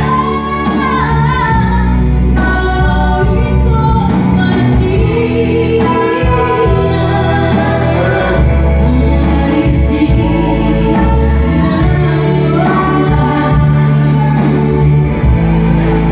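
A woman sings a Batak Toba-language song over a band backing track with a steady beat.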